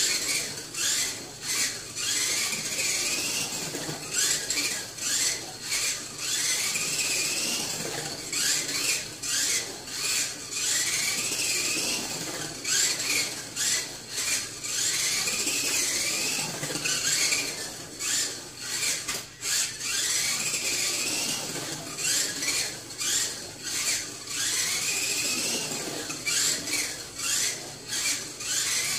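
Mini-Z 1/28-scale RC car with a stock brushed motor and 6-tooth pinion running laps. It makes a high motor and gear whine that rises and falls in pitch with the throttle, over a steady hiss, with frequent short dips.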